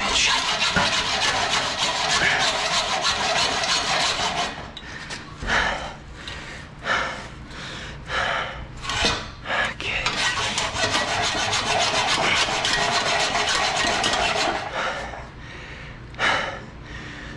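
Hand hacksaw cutting through a steel exhaust pipe. Long runs of rapid rasping strokes are broken in the middle by a few slower, separate strokes. The cut is going slowly, and the blade may be dull.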